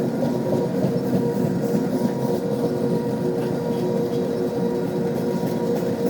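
Freight train cars rolling past on the rails: a steady, even rumble with scattered wheel clicks and a faint constant whine, no horn.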